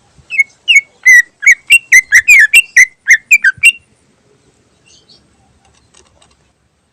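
A cucak ijo (green leafbird) sings a fast, choppy run of about a dozen loud whistled notes that slur up and down. The run lasts about three and a half seconds, then breaks off.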